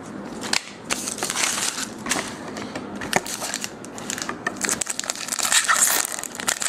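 Foil wrapper of a trading card pack being torn open and crumpled by hand, an irregular crinkling crackle.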